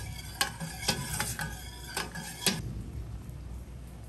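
Stainless steel ladle stirring agar-agar mixture in a stainless steel saucepan, clinking against the pan several times, roughly every half second. The clinks stop after about two and a half seconds, leaving a steady low hiss.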